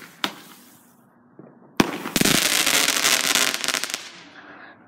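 Consumer fireworks going off. There are two sharp pops, then a louder crack a little under two seconds in, followed by about two seconds of dense crackling that trails away.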